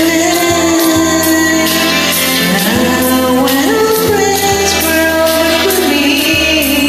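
A woman singing over a karaoke backing track, her voice holding notes and gliding up between them, with percussion strokes in the accompaniment.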